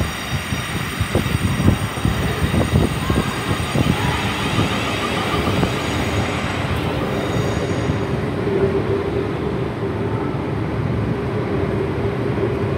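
Class 444 Desiro electric multiple unit pulling away. Irregular low knocks and clatter over the first few seconds, then a steady whine from about five seconds in.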